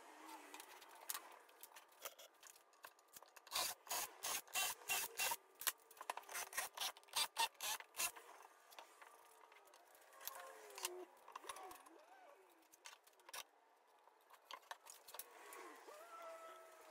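Hand work on plywood: a quick run of irregular scraping and rubbing strokes, then quieter scattered handling sounds.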